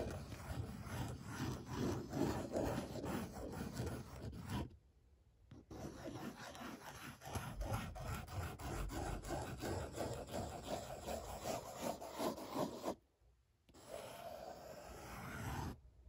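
Fine-tip pen nib scratching across paper as it draws continuous loops, a steady rasping rub that stops twice briefly, about five seconds in and again about thirteen seconds in.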